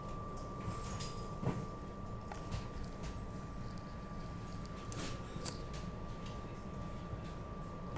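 Steady low hum inside a SEPTA regional rail car standing at a station, with a thin, steady high whine and a few light clicks and knocks.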